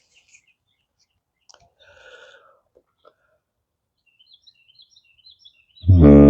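Faint bird chirps, then about six seconds in a didgeridoo blast starts suddenly. It is a loud, steady, low drone rich in overtones.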